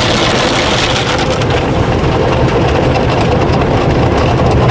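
Belanger tunnel car wash heard from inside the car: water spraying and cloth brushes washing over the body and windshield as a loud, steady rush, over a steady low hum.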